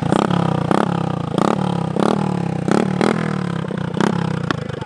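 Honda Wave motorcycle's single-cylinder four-stroke engine running through a modified exhaust, blipped up repeatedly about every half second to second, each rev falling back between blips.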